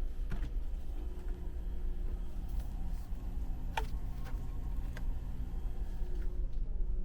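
Steady low rumble and hum of a large car ferry's engines heard from inside the ship, with a few light clicks and one sharper click with a brief falling squeak about four seconds in.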